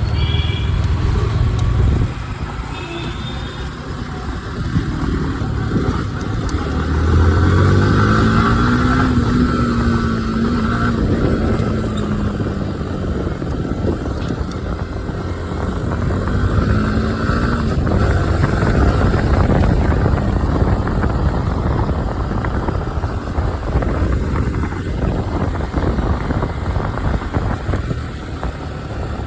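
Yamaha R15 V4 motorcycle running, its engine pitch rising and falling, with a couple of short, high-pitched horn beeps in the first few seconds.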